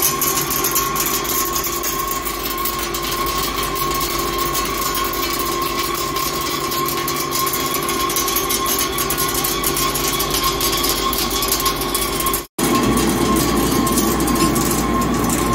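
Heavy Hankook CNC lathe turning a steel shaft: a steady machine hum with a high whine and a continuous fine crackle. The sound drops out for an instant about twelve and a half seconds in, then carries on coarser.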